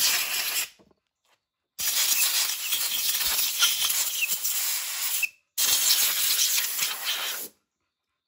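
Compressed air hissing from a blow gun in three sharp on-off bursts, aimed into a riding-mower engine: the first ends under a second in, the second lasts about three and a half seconds, and the third about two.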